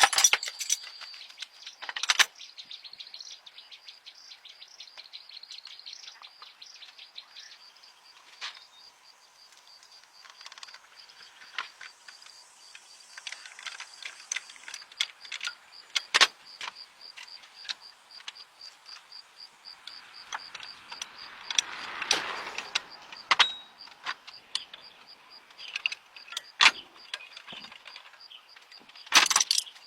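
Scattered sharp clicks and knocks of hand tools and metal parts being handled during engine repair work. A swell of rushing noise comes about two-thirds of the way through. Behind it all, insects keep up a steady high-pitched chirping.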